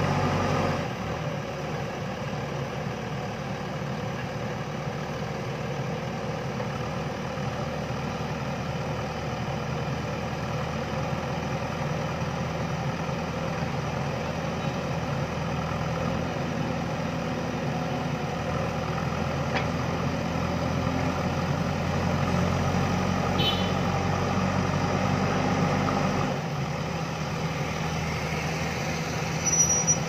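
JCB backhoe loader's diesel engine running steadily as the machine works its loader and backhoe hydraulics. The engine note drops about a second in, builds slowly, and drops again near the end, with a brief squeak about three-quarters through and a short sharp knock just before the end.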